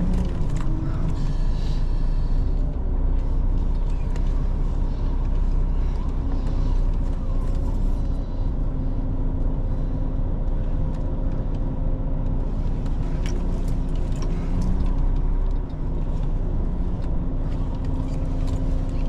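Articulated lorry's diesel engine running steadily while the truck is slowly manoeuvred into a parking spot.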